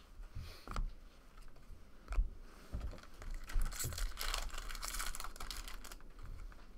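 Football trading cards being handled: cards slide and rustle against each other as they are flipped through, with soft clicks and taps as they are squared up and set down. The rustling is loudest around the middle.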